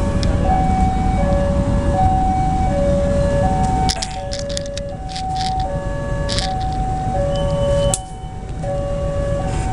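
Level-crossing warning alarm sounding two alternating tones, each held about half a second, over the heavy rumble of a diesel locomotive passing over the crossing. Sharp clicks from the wheels come between about four and six and a half seconds in.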